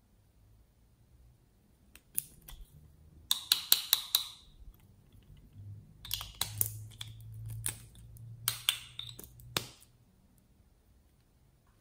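Hard plastic clicking and rattling as a candy-shaped plastic correction tape is handled, in three clusters of sharp clicks: a little over three seconds in, around six seconds, and again around nine seconds.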